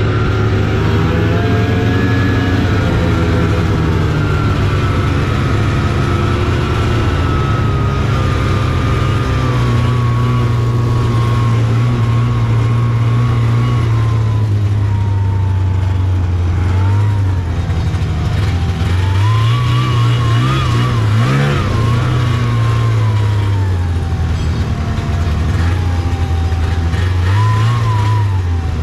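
Taiga Varyag 550 snowmobile's two-stroke twin engine running while riding, its pitch rising and falling with the throttle: revved up sharply about two-thirds of the way through and again briefly near the end.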